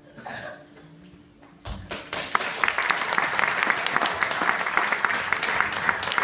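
Audience applause that breaks out about two seconds in: many hands clapping together at a steady level.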